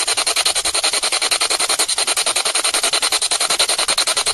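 Spirit box radio played through a small portable speaker, rapidly sweeping across radio stations: a loud, steady hiss of static chopped into about ten pulses a second.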